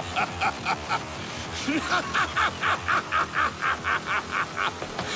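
Vegeta laughing in the Latin American Spanish dub: a long run of quick 'ha-ha-ha' bursts, about five a second, growing louder about two seconds in.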